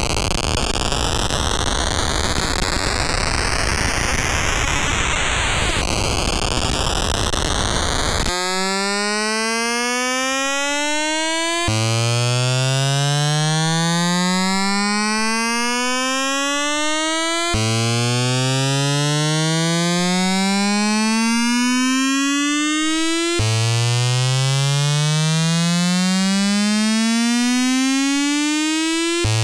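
ARP 1601 sequencer clone clocked at audio rate by a TTSH synthesizer's square-wave oscillator, its CV output heard as a buzzy synth tone whose timbre is set by the step sliders. For the first eight seconds it is a harsh, noisy buzz. Then it becomes a clean, bright tone that glides steadily upward in pitch and drops back down, repeating about every six seconds.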